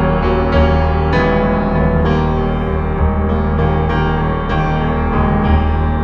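Background music: a keyboard playing a string of notes over a sustained low bass.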